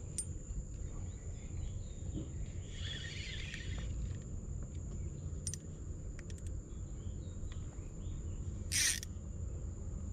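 Outdoor riverside ambience: birds chirping in a short spell a few seconds in, over a steady high insect whine and a low rumble. A few light clicks come around the middle, and a brief rustle near the end is the loudest sound.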